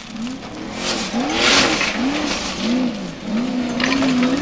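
Formula offroad buggy's engine revving up and down again and again, about twice a second, as it claws over loose gravel. Two bursts of rushing hiss from the spinning tyres and thrown gravel come about a second and a half in and near the end.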